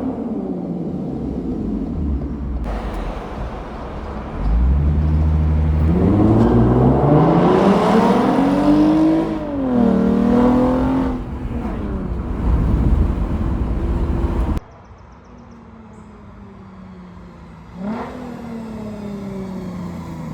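Lexus GS350 F Sport's V6 with an aftermarket active valved exhaust, accelerating hard with its pitch climbing for about five seconds before easing off. It then cuts abruptly to quieter running, with a brief rise in revs near the end.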